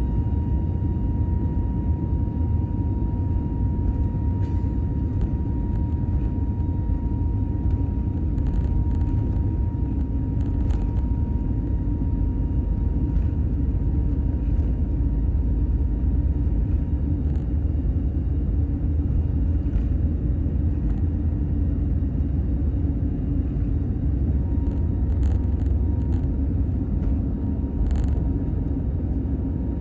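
Steady low rumble of engine and airflow inside the cabin of an Airbus A320neo, with a faint steady high tone and a few light clicks and rattles.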